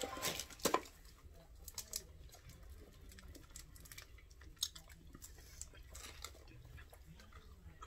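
Two people chewing a chewy caramel candy with closed mouths: faint, scattered wet clicks and smacks, a few louder ones in the first second.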